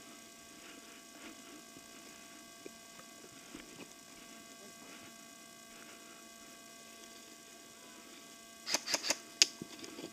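A steady electrical hum, then near the end a quick run of five or six sharp cracks within about a second: airsoft gun shots.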